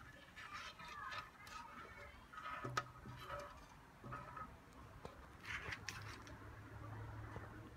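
Faint clicks and rustles of wire test leads with metal alligator clips being handled on a wooden table, with a few sharper clicks.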